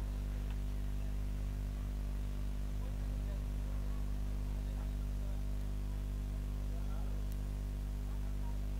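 Steady low electrical mains hum with a stack of overtones, unchanging throughout.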